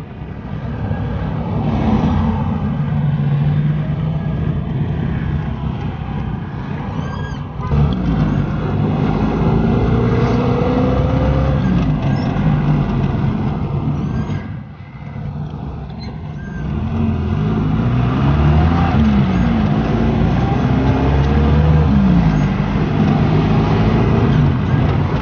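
Car engine and road noise while driving, with the engine pitch rising and falling as it speeds up and changes gear, and a short lull about halfway through.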